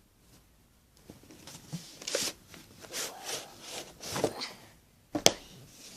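A small cardboard box being opened and a book slid out and handled: a run of short scraping and rustling sounds, then one sharp knock a little after five seconds in.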